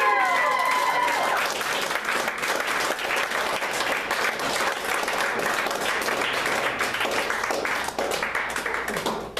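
Audience applauding, with high whoops and cheers in about the first second. The clapping dies away near the end.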